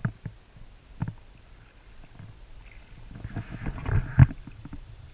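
Footsteps wading through shallow river water: irregular sloshing and splashes with low thumps, the loudest about four seconds in.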